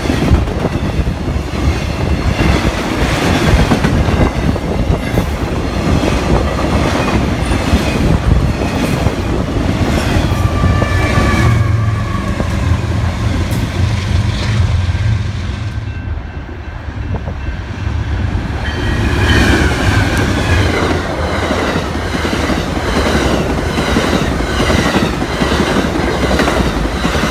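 Intermodal freight cars rumbling and clacking over the rails, then BNSF diesel locomotives passing with a deep, steady engine drone. In the last seconds, Amtrak Superliner passenger cars clatter by in a quick, even rhythm of wheel clicks.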